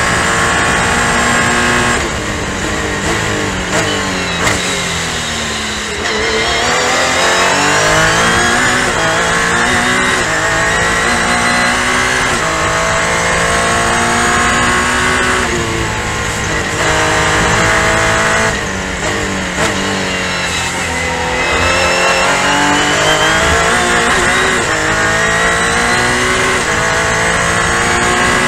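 Supercharged V6 engine of a Revolution SC500 race car heard onboard at racing speed. Its note drops sharply about two seconds in and again about two-thirds of the way through, falls while the car slows, then climbs back up in steps through the gears.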